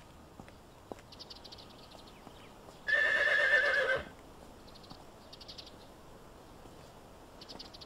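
A horse whinnying once, a wavering call about a second long, a few seconds in.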